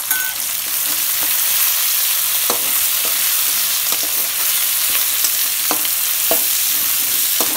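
Chopped onion, capsicum and chilli sizzling in hot oil in a wok as they are stir-fried with a metal spoon: a steady hiss with several sharp taps and scrapes of the spoon against the pan.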